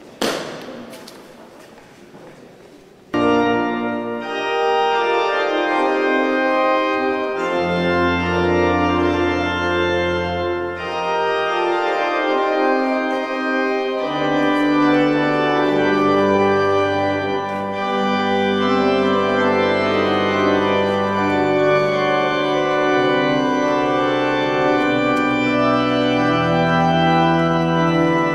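Church organ playing the wedding processional: full sustained chords come in suddenly about three seconds in, and deep pedal notes join a few seconds later. Just before the organ, a sudden noise fades away over a couple of seconds.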